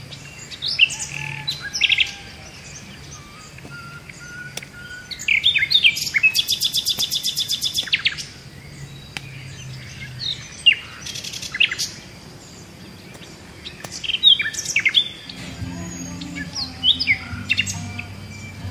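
Several birds chirping with short, sharp high calls, including a fast, evenly spaced trill about six seconds in that lasts about two seconds.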